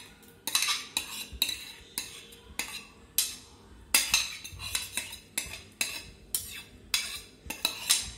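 Metal spoon scraping and tapping against a ceramic plate and glass bowl as mint masala paste is knocked off into the bowl: an irregular string of sharp clinks and scrapes, about two to three a second.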